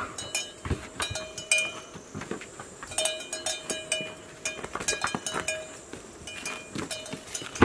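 Cattle bells clinking and clanking irregularly while hooves knock on stone steps, a string of sharp clicks with short metallic ringing between them.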